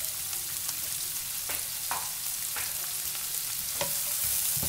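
Sliced onions and green chillies sizzling as they sauté in oil in a nonstick wok, with a steady hiss. A wooden spatula stirs them, making a few soft scrapes and knocks against the pan.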